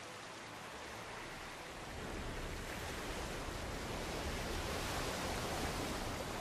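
Steady rushing of sea waves and surf, growing a little louder about two seconds in.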